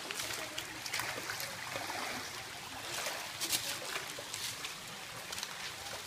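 Shallow stream trickling and splashing over rocks, with scattered footsteps clacking on stones and crunching dry leaves.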